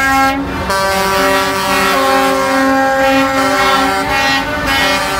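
Several air horns on concrete mixer trucks sounding together in long, held chords. The pitches shift a few times, with a brief break just under a second in.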